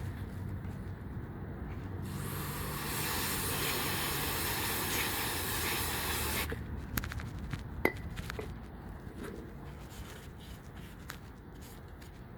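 Aerosol can of CRC electronic contact cleaner sprayed in one continuous hiss of about four and a half seconds, cleaning the temperature blend door actuator. A few small sharp clicks and taps of handling follow.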